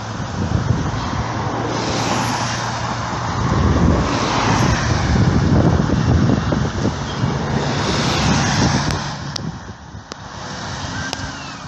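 Double-decker bus engine running with a steady low hum as the bus draws slowly closer, mixed with the tyre and engine noise of cars passing on the road, which swells several times and is loudest around the middle.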